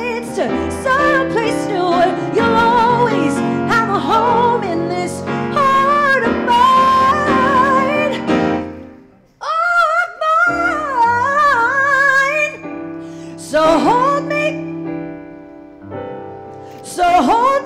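A woman singing a slow ballad into a microphone, holding long wavering notes over keyboard accompaniment. The music drops out briefly about nine seconds in, then the singing resumes.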